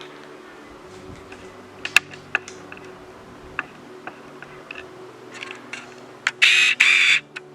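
Handling noise while unpacking a monitor stand: scattered light clicks and knocks, then a loud rustling scrape of about a second near the end.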